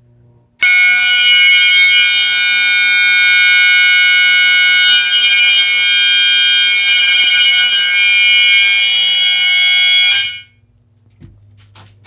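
A home fire alarm test system in alarm, set off by a pulled pull station: its electronic sounders, among them two System Sensor MASS units, one set high-pitched and one low-pitched, sound a loud steady alarm of several pitches at once. It starts about half a second in and cuts off abruptly after about ten seconds.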